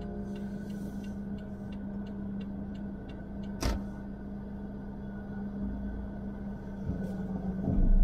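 Car cabin sound of a car rolling slowly: a steady low engine hum over road rumble, with one sharp click about three and a half seconds in, and the rumble swelling near the end.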